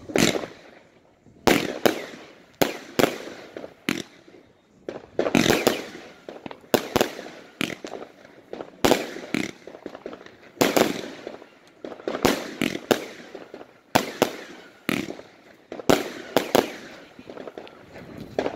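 Fireworks going off: a long run of sharp bangs at irregular intervals, about one or two a second, each with a short echoing tail.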